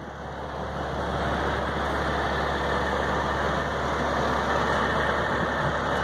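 Diesel semi-truck engine idling steadily, growing louder over the first second and a half and then holding even.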